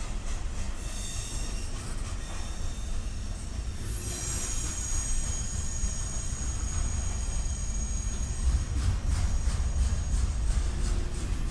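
Double-stack intermodal freight cars rolling past on the rails with a steady low rumble. A high, steady wheel squeal sets in about four seconds in, and a run of clicks from the wheels comes near the end.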